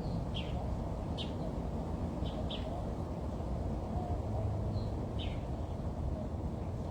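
Small birds chirping: about seven short, quick, downward-sliding chirps at irregular intervals, over a steady low background rumble.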